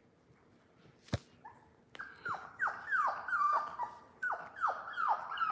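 A one-month-old Labrador puppy whimpering: a quick run of short, high cries, each falling in pitch, about three a second, starting about two seconds in. A single sharp click comes about a second in.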